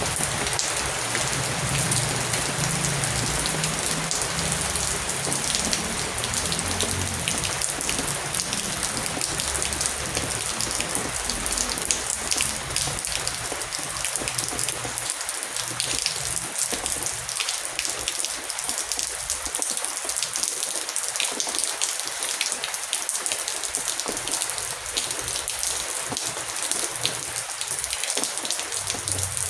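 Heavy rain falling steadily, a dense hiss full of fine drop patter. A low rumble sits underneath through the first half and fades out about halfway.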